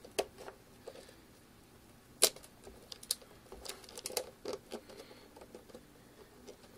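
Irregular small clicks and scrapes of a D-sub (VGA) cable plug being worked into a monitor's input socket, with one sharper click a little over two seconds in.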